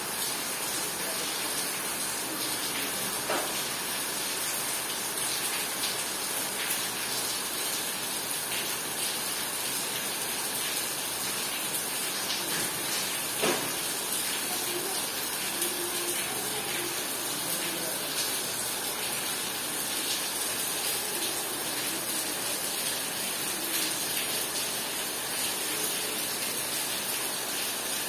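Heavy rain pouring down steadily, with an occasional sharp tap of a drop close by, the loudest about halfway through.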